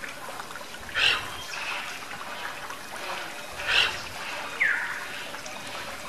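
Garden fountain water trickling steadily, with two brief louder sounds about a second in and near four seconds. A short, falling bird call comes near the end.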